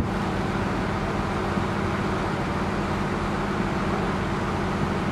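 Steady engine drone of a river passenger motor ship, an even hum with a low buzz under it. Two faint pops from the distant fireworks come through, one about a second and a half in and one near the end.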